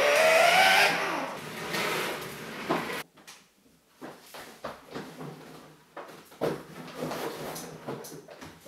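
Plastic body of a child's ride-on toy car knocking and creaking as an adult squeezes onto it and settles into the seat, with a brief strained groan at the start.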